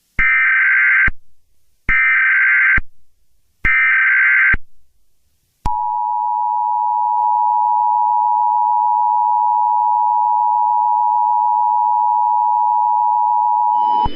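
Emergency Alert System tones: three SAME header data bursts of about a second each, then the two-tone EAS attention signal (853 and 960 Hz together) held steadily for about eight seconds.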